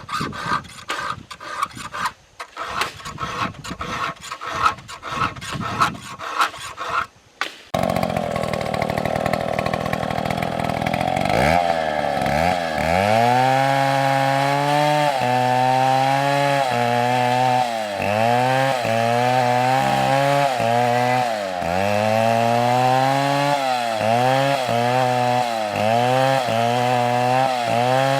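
Irregular knocks and clicks for the first several seconds. Then a chainsaw runs and cuts into wood, its engine pitch repeatedly dropping under load and picking back up.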